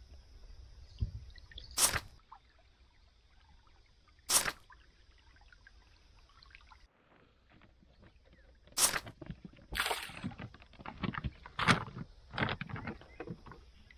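Water splashing and sloshing around a wooden boat, with single sharp splashes or knocks every few seconds, then a busier run of splashing and knocking in the second half.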